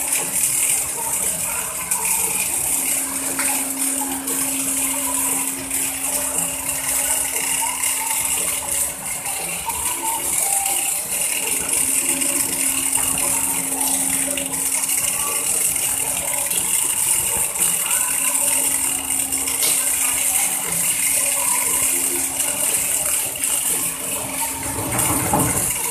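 Continuous crackling hiss of double-torch pipeline welding heads arcing on a pipe joint during the fill and cap passes, over a steady machinery hum that breaks off briefly a few times. A short louder rumble comes near the end.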